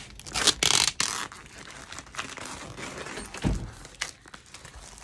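Scissors cutting packing tape and the tape ripping off a cardboard shipping box, loudest about half a second in, followed by crinkling handling of the cardboard flaps and a dull thump about three and a half seconds in.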